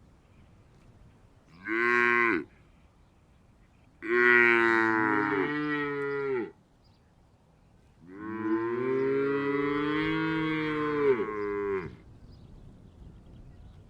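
A cow mooing three times: a short moo, then two long ones, the last lasting about four seconds.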